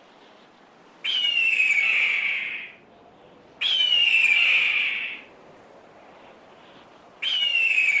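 Bird of prey screaming three times, each a harsh, down-slurred cry about a second and a half long, the third starting near the end.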